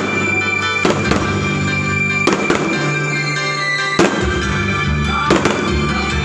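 Fireworks going off in about eight sharp bangs, some in quick pairs, over loud music.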